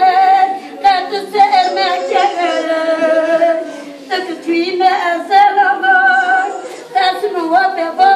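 An unaccompanied Turkish ağıt (mourning lament) sung by a woman's voice in long, wavering, sliding phrases, with short breaks about four seconds in and again near seven seconds.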